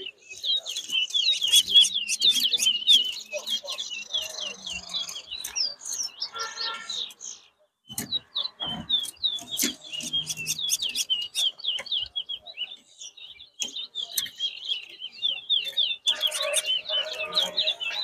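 Towa towa (chestnut-bellied seed finch) singing: a long, fast run of short, high chirping notes, several a second, broken off briefly about eight seconds in.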